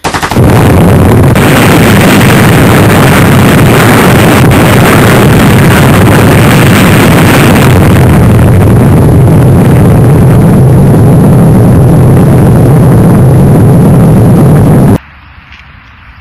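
Long, loud rumbling roar of a huge explosion, heaviest in the low end. It starts suddenly and cuts off abruptly about a second before the end.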